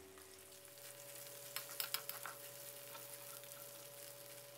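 Salted Spanish mackerel sizzling faintly in hot oil in a wok while a metal spatula mashes and breaks up the fish flesh, with a few sharp scrapes and clicks of the spatula against the pan about two seconds in.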